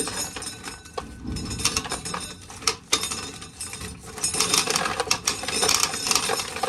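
Dried corn being shelled off the cob: kernels clicking and rattling irregularly as they come loose and fall into a bucket.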